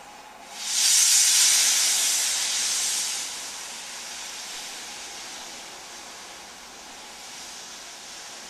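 Steam locomotive, the LMS Stanier 8F No. 48151, letting off steam: a loud hiss starts suddenly about half a second in, is strongest for the next two seconds, then eases to a softer steady hiss.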